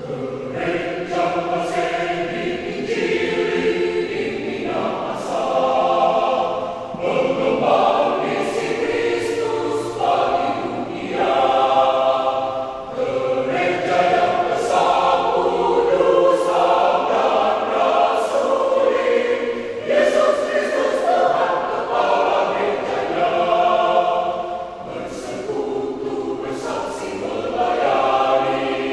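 Church choir of about twenty-one voices singing a hymn in F major, the many voices entering together right at the start and carrying on in sustained phrases with clear sung consonants.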